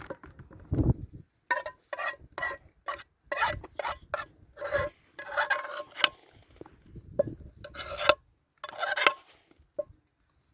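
A kitchen utensil scraping against cookware in about a dozen short, irregular strokes that stop near the end.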